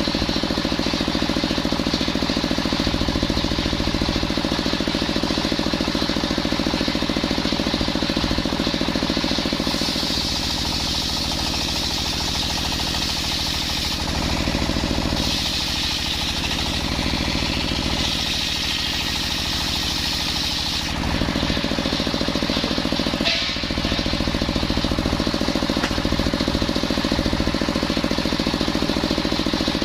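Circular sawmill running steadily with a pulsing low rhythm. Three times, from about a third of the way in to about two thirds, a higher-pitched cutting whine rises over it as the blade cuts through coconut timber.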